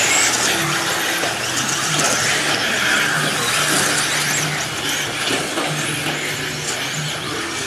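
Electric 1/10-scale RC buggies racing on clay: a dense, steady mix of high motor whine rising and falling as they accelerate and brake, with tire and track noise.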